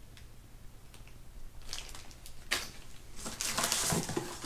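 Plastic packaging bags crinkling and rustling as bagged parts are handled and rummaged from the box: a few scattered crackles at first, then dense crinkling from about halfway in.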